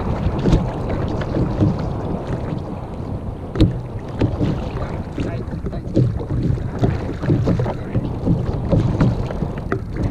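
Small waves lapping and slapping against the hull of a sit-on-top kayak, with wind buffeting the microphone and a scatter of short knocks, the sharpest about three and a half seconds in.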